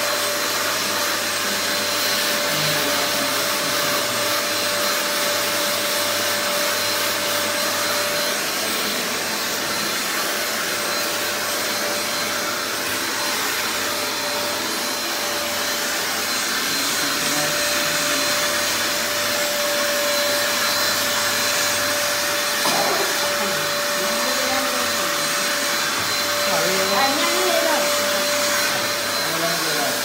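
Euro Fine EF6239 1000-watt handheld vacuum cleaner running steadily, its motor giving a thin high whine over the rush of suction through the hose and brush nozzle. In the last several seconds the sound wavers as the nozzle is moved over the stand.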